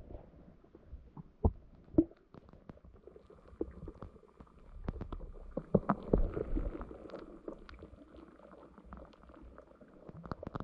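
Muffled underwater sound through a GoPro's waterproof housing: low rumbling with many scattered clicks and knocks, two sharper knocks about one and a half and two seconds in.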